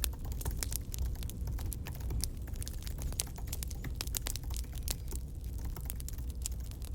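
Campfire crackling: irregular sharp snaps and pops of burning wood, coming several times a second, over a low steady rumble.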